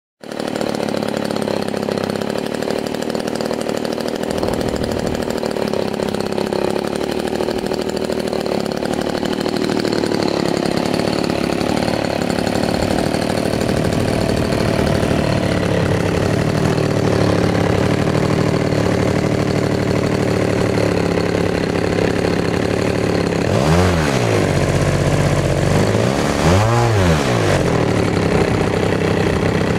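17cc NGH two-stroke model-aircraft engine running steadily on a test stand during its first run, with the propeller turning. Near the end its pitch briefly rises and falls twice.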